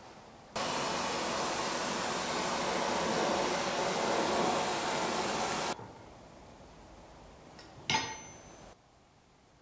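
Gas torch flame hissing steadily as it heats a twisted steel bar; it cuts in sharply about half a second in and stops abruptly just before six seconds. About eight seconds in, a single sharp metallic clank of steel on the anvil rings briefly.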